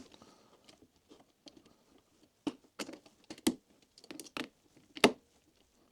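Irregular small clicks and taps from a budget ratcheting screwdriver being worked against a screw and having its direction switched, the sharpest click about five seconds in. The ratchet is so stiff that it does not start ratcheting.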